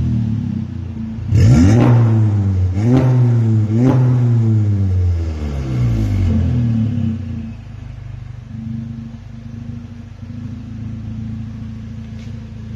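Volkswagen Golf MK7 GTI's turbocharged 2.0-litre four-cylinder through a de-catted Armytrix valved exhaust, revved in three quick blips about a second apart, then falling back and settling to a steady idle.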